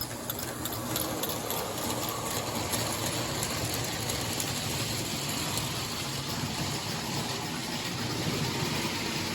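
Lionel postwar 2020 turbine toy locomotive running steadily on track, pulling a train of cars: a continuous whir of its electric motor and gears with a low hum and a light rattle of wheels on rail.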